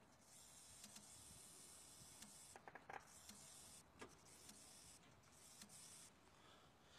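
Faint whirring hiss of a 5.0L Mustang's electric fuel pump priming in several short runs that cut in and out, with a few light clicks. The pump runs each time the failing TFI ignition module is twisted and its signal returns.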